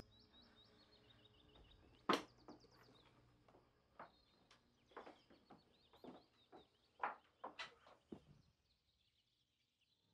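Faint high-heeled footsteps on a wooden floor: a scatter of sharp taps at uneven intervals, the loudest about two seconds in, stopping about eight seconds in. Faint high chirping continues under them.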